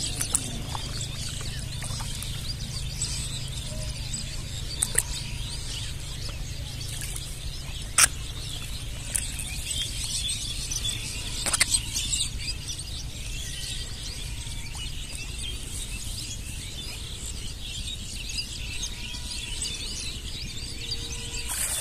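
Outdoor ambience over shallow water: a steady low rumble under a high hiss of faint bird chirps, broken by a few sharp clicks, the loudest about eight seconds in.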